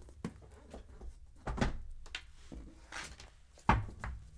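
Tarot cards and their box being handled on a table: a few light knocks and taps, the two loudest about a second and a half in and near the end.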